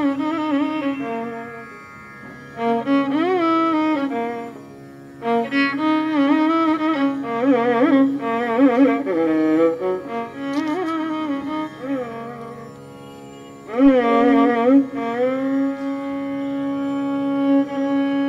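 Background instrumental music in a Carnatic style: a bowed string melody with sliding, bending notes over a steady drone, settling into a long held note near the end.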